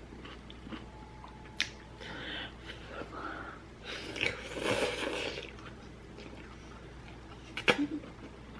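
Eating and handling noises at a ramen bowl: a few sharp clicks of chopsticks against the bowl, with soft chewing and food-moving sounds. The loudest stretch comes about four to five seconds in.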